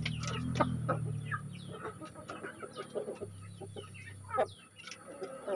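Chickens clucking: many short, quick calls overlapping, one louder call about four and a half seconds in.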